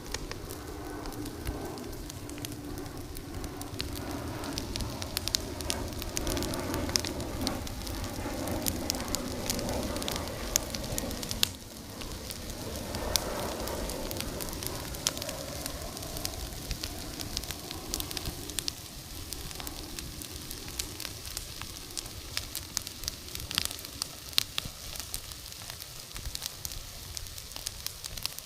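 Bonfire of contaminated wooden beehive parts burning hot, the beeswax in them alight, with constant crackling and many sharp pops. A low rushing of flame is louder through the first half.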